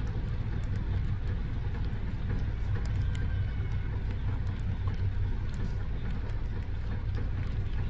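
Steady low rumble of an idling car, heard from inside the vehicle, with faint scattered ticks over it.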